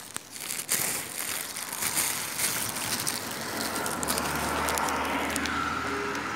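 Close rustling and crinkling of a plastic litter bag and dry grass being handled and trodden, densest in the first three seconds or so. A low steady hum comes in about four seconds in.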